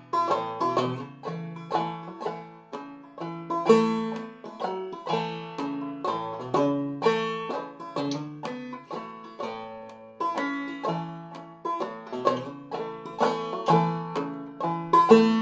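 Solo clawhammer banjo in double B-flat tuning playing a waltz tune, a steady run of plucked, ringing notes with a lilting rhythm.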